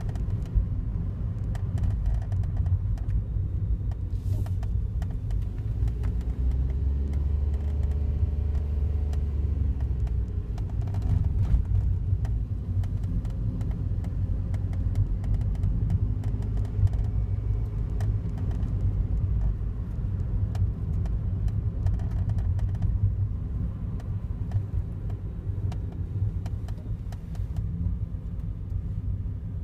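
Daihatsu Wake kei car running, a steady low rumble with faint scattered clicks, recorded to catch an abnormal noise of unknown cause that the owner hears from it every morning.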